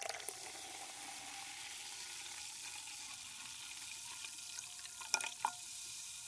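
Soda poured into a glass, fizzing with a steady bright hiss of bubbles, with a few short sharp splashes about five seconds in.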